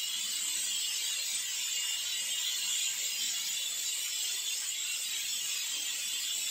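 Steady hiss, even in level throughout, with a fine grainy texture and no pitch.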